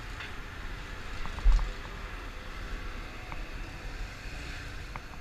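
Motorcycle running at low speed with a steady low rumble, and one loud low thump about one and a half seconds in.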